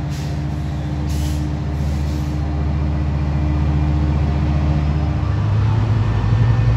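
Metrolink diesel locomotive running with a steady low engine drone, with short hisses of air about one to two seconds in. About five seconds in, the engine note steps up and grows louder.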